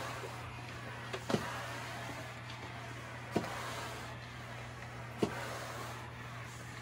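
Shark S1000WM steam mop running, with a steady low hum and a hiss, and a sharp click about every two seconds.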